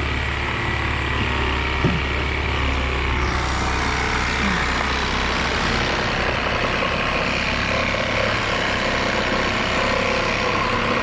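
A motor vehicle's engine running steadily, with a few short knocks about two seconds in.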